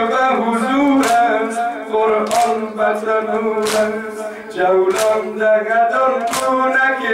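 Male voices singing a Persian noha (Muharram lament) without instruments. A congregation strikes its chests in unison (sineh-zani) with a sharp beat about every 1.3 seconds, five times.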